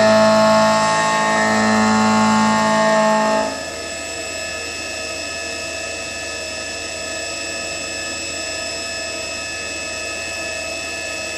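Small CNC milling machine's end mill cutting a pocket, a loud ringing cut that swells and eases about every second and a half. About three and a half seconds in the cutting noise drops away, leaving a steadier, quieter whine.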